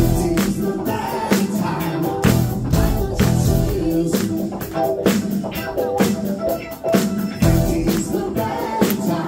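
Live band music with a steady drum beat and singing.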